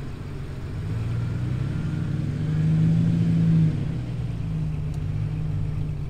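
Off-road vehicle's engine running, swelling louder from about two seconds in and dropping back suddenly a little past halfway.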